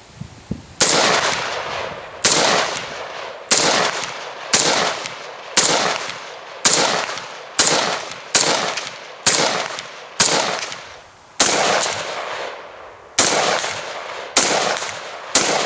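A SIG Sauer P556 pistol in 5.56 mm firing a string of about fourteen single shots, roughly one a second, with a longer pause a little after the middle. Each shot trails off over most of a second.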